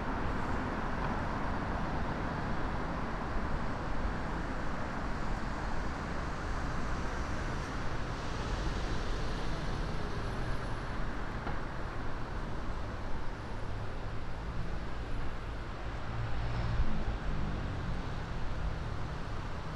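City street ambience: steady road-traffic noise with a low rumble of passing vehicles.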